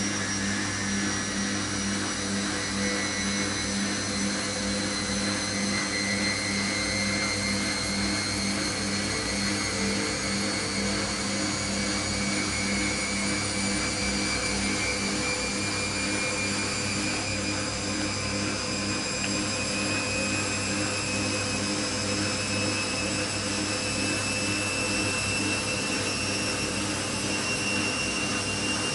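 Siemens 6127 front-loading washing machine in its spin cycle: a steady hum of the spinning drum and motor, with a motor whine that slowly rises in pitch as the drum speeds up.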